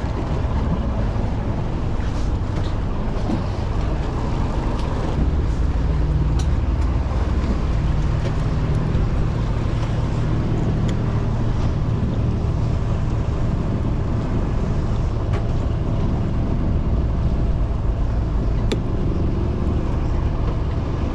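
Fishing boat's engine running steadily, a constant low drone, with a few faint clicks.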